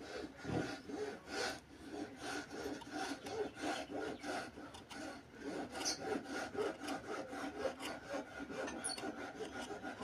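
A hand saw cutting through green wood in rhythmic back-and-forth rasping strokes.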